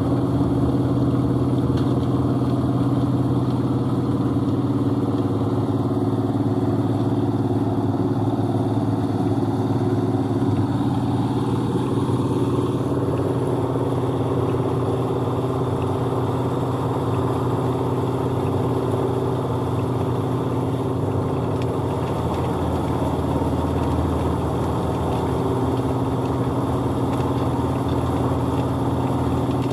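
Small engine of a portable concrete mixer running steadily at a constant speed, a continuous even hum.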